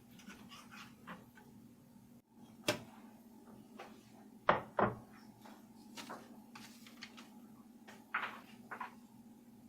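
Household handling noises: a scatter of light knocks and clicks, the loudest two in quick succession about halfway through, over a steady low hum.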